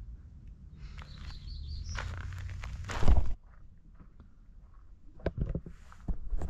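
Footsteps on a dirt trail, with a single loud knock about three seconds in. Four short high chirps come about a second in.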